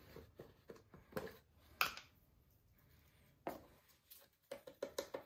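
A few faint scattered taps, then, near the end, a whisk beating dry ground spices in a bowl with quick even strokes, about six a second, blending a spice rub.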